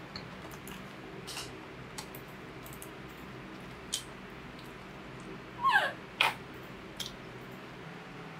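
Baby monkey giving a short squeal that falls in pitch a little past halfway, then a brief second squeak, over a steady low room hum and a few light taps.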